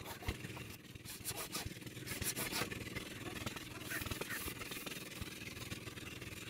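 Hacksaw scraping on a white PVC pipe, then the pipe being lifted and set down, giving irregular scrapes and light knocks.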